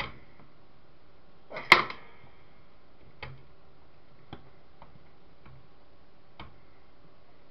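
Needle-nose pliers and small metal parts working on a CCTV camera's metal chassis. A sharp metallic clank about two seconds in rings briefly, followed by a few faint clicks spread out over the next few seconds.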